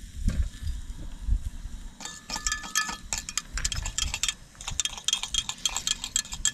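A metal spoon clinking rapidly and irregularly against the side of a container while stirring a stock cube into hot water, with a brief ringing tone about two seconds in.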